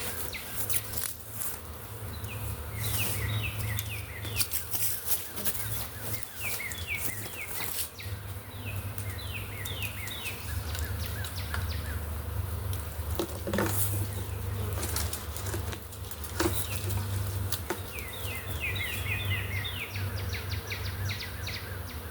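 Steady low hum of a honey bee swarm in the air, with a songbird singing several phrases of quick falling notes. Scattered clicks and knocks are heard.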